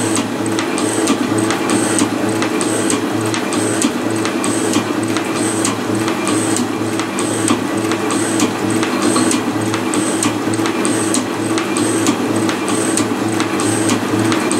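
Milling machine running with its end mill cutting a groove into a metal block held in a vise: a steady machine hum with a regular high tick about twice a second.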